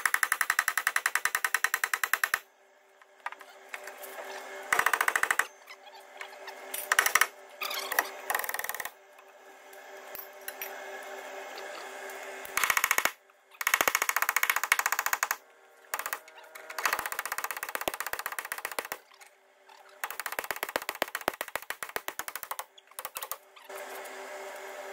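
Impact gun hammering in repeated bursts of a second or two, undoing the leaf-spring hanger and shackle bolts. A faint steady hum runs underneath between bursts.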